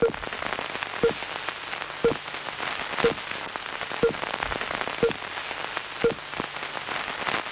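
Old-film soundtrack crackle and hiss, with a short low blip and click about once a second, in time with a countdown leader.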